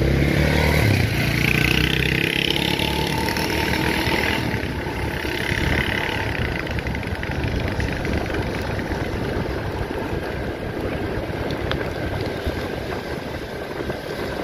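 Engine of the vehicle being ridden, running steadily on the move, with road and wind noise on the microphone; louder during the first few seconds.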